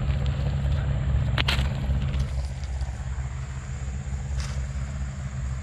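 A steady low rumble, with a metal digging tool knocking on river stones, sharply once about a second and a half in and more faintly near the end.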